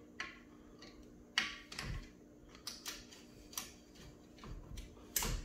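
Light metallic clicks and taps, about a dozen at uneven intervals, from a nut driver working the small through-bolts on the end bell of a pool booster pump motor.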